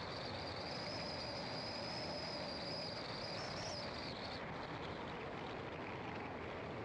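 Car driving, with steady road and engine noise. Over it runs a high, steady insect chorus that stops suddenly about four seconds in.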